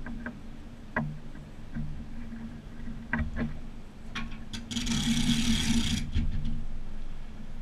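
Clicks and knocks of the bow hook and strap being handled on the jet ski trailer, then a rasping burst lasting just over a second, over the steady low hum of an idling truck engine.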